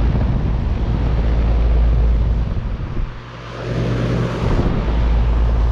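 Bryant Legacy Line 2.5-ton central air conditioner condensing unit running just after its first start of the season: a Copeland scroll compressor's steady low hum under the rush of the condenser fan. The loudness dips briefly about three seconds in.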